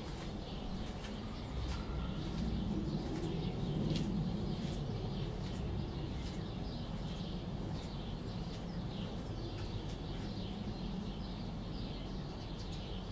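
Chicks peeping from under a broody hen: many short high chirps, close together and uneven, over a steady low rumble.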